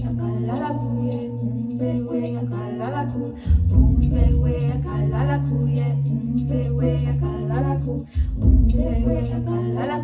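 A woman singing wordless melodic lines over layered, looped vocal harmonies and a steady low drone; the low part shifts about three and a half seconds in and again near the end.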